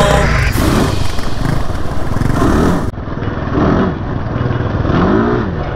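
Kawasaki KFX 400 quad's single-cylinder four-stroke engine running under the rider, its pitch rising and falling several times as the throttle is worked, with a second quad riding just ahead on the gravel track.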